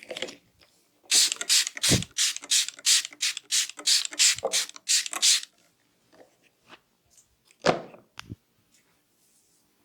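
Rapid rhythmic percussive massage strokes, about three a second for some four seconds, then two duller thumps near the end.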